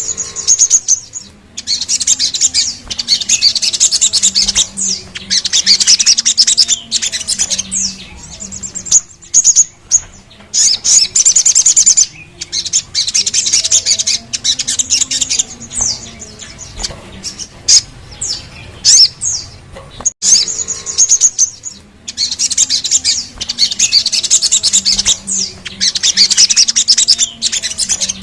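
Sogon (sogok ontong), a small sunbird, singing fast, high trilling phrases and sharp chirps in repeated bouts of a few seconds with short breaks between them.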